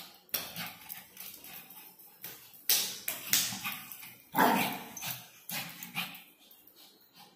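A small Shih Tzu barking in short separate bursts, about six times, loudest about four and a half seconds in.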